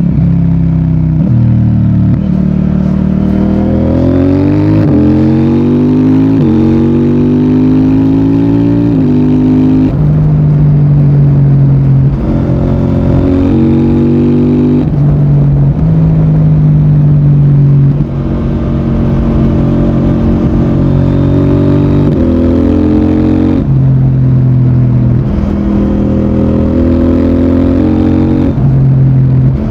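CFMOTO 800NK Advanced's 799 cc parallel-twin engine and exhaust under way, revving up and shifting through several gears in quick steps with the quickshifter, then running along with repeated rises and falls of the throttle.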